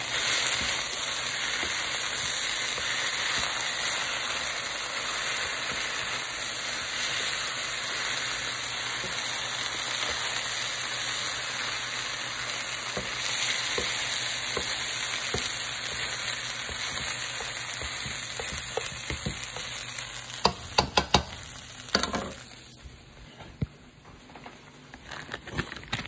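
Fried rice and scrambled egg sizzling in a hot nonstick frying pan while a spatula stirs and scrapes through it. Near the end come a few sharp knocks, and then the sizzle drops away to a faint hiss.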